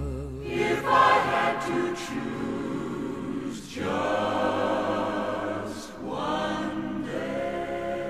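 Wordless passage of a sung ballad: a backing choir holds long chords over the accompaniment in three phrases, each swelling and then dropping away.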